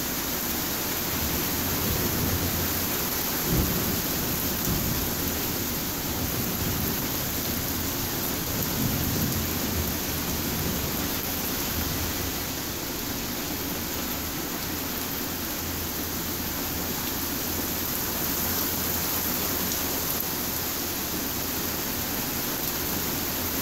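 Steady rain falling, with low rumbling of thunder underneath.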